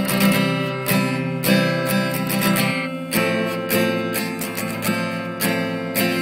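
Background music from a song's instrumental passage: acoustic guitar strumming chords, with a chord change about three seconds in.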